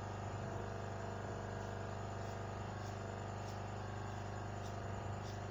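Hot air rework station blowing steadily, a continuous hum and hiss, while it reflows the solder under an SMD power IC being refitted to a power-bank board. A few faint ticks sound over it.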